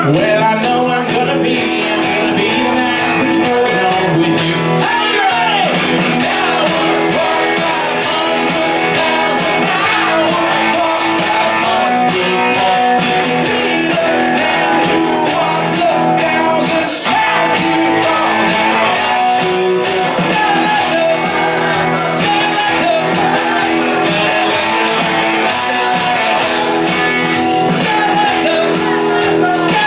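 Live rock band playing a pop-rock cover through a PA, with a lead singer over amplified guitar and band backing, loud and steady.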